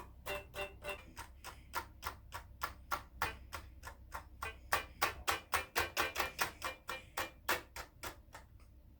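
Electronic keyboard played in quick, short staccato taps: a rapid run of sharp key clicks, several a second, with faint brief notes over the first ones. The taps grow louder in the middle and thin out near the end.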